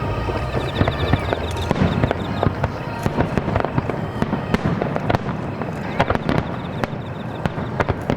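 Starmine fireworks display: many shells bursting in quick succession, the bangs coming close together and overlapping throughout.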